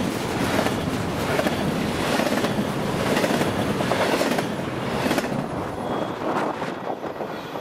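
Double-stack container well cars rolling past close by: the steady rumble of steel wheels on rail with a clack about once a second. The sound drops away after about five seconds as the last car passes.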